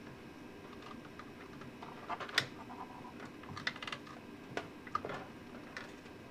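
Irregular small clicks and knocks from handling an opened battery charger's metal chassis and its wiring and connectors, the sharpest click about two and a half seconds in.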